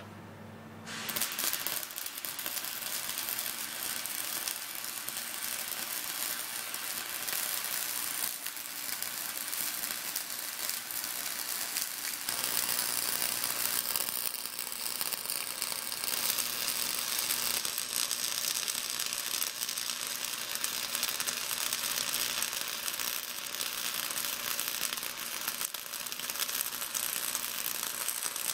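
Flux-core wire-feed welder arc crackling steadily while a weld bead is laid, starting about a second in.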